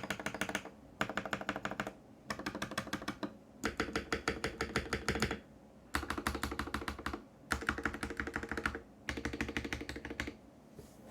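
Typing on a computer keyboard: about seven quick runs of rapid key presses, separated by short pauses.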